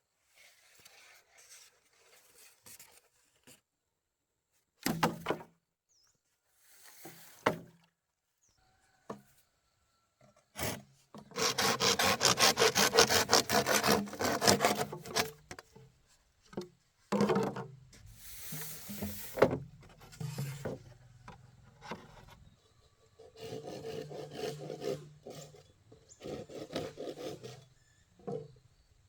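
Bamboo being worked by hand with a blade: rasping, sawing or scraping strokes in bursts, the longest lasting a few seconds near the middle, with a few sharp knocks between them.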